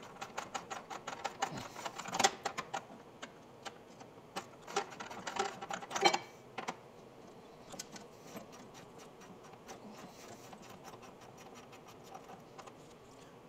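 Socket ratchet clicking in quick runs as a 14 mm nut on a snowmobile engine is wound off, with two louder knocks of the tool about two and six seconds in. The clicking thins out and grows fainter in the second half.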